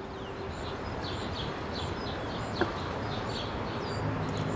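Small birds chirping over and over with short high calls, over a steady outdoor background hiss. A low steady hum comes in near the end, and there is a sharp click at the very end.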